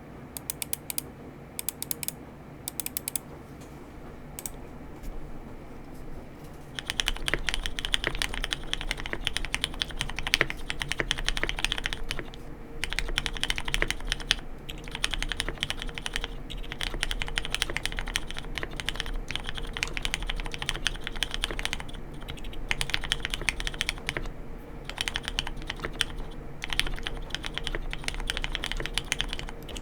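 Typing on a Mode Sonnet mechanical keyboard fitted with Hyperglide Black linear switches (spring-swapped, lubed and filmed) and KBDfans Clear Aurora keycaps. A few scattered keystrokes come first, then steady typing of sentences starts about seven seconds in, broken by short pauses.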